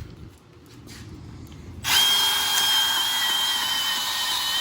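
An electric power tool starts abruptly about two seconds in and runs steadily with a high whine.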